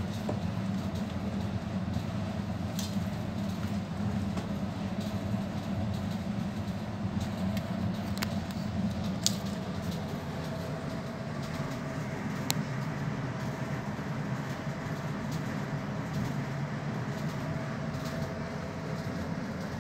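Steady low rumbling hum with a faint even tone over it, broken by a few sharp clicks.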